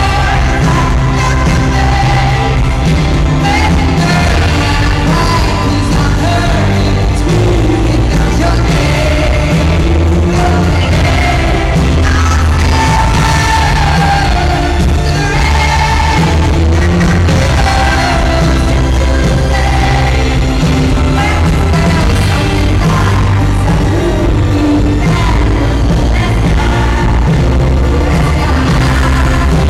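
Live pop performance of a power ballad: a female lead singer with a full band, heavy bass and drums under the sung melody.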